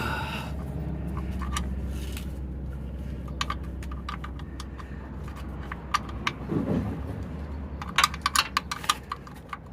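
Metal hand tools clicking and clinking against metal under a car. The clicks are scattered at first and come in a quick cluster near the end, over a steady low rumble that slowly fades.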